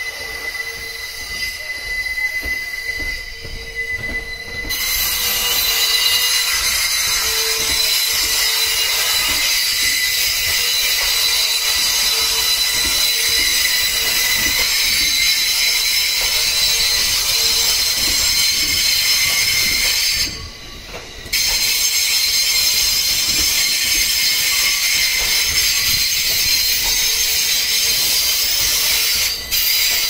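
JR East E231-series electric train moving slowly over yard tracks, its steel wheels squealing loudly against the rails. The high, steady squeal sets in about five seconds in and breaks off for about a second two-thirds of the way through.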